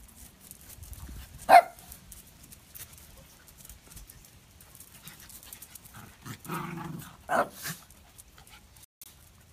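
Small dogs barking and yipping: one sharp yip about a second and a half in, then a short bark and two quick yips around seven seconds in.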